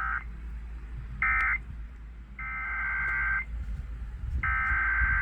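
Emergency Alert System SAME digital data bursts, a shrill warbling buzz: two short bursts, the end-of-message signal closing one alert, then two longer header bursts about a second each, opening the next alert.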